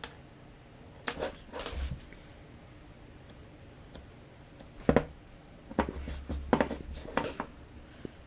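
A small hand tool scraping and tapping in packed Delft casting clay as vent channels are cut into the mould. There are a couple of short scrapes about a second in, then a cluster of them from about five to seven and a half seconds.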